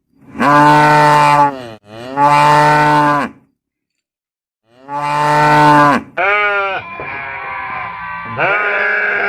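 A cow mooing three times in long, loud calls. About six seconds in, a different animal's wavering, higher-pitched bleating calls take over.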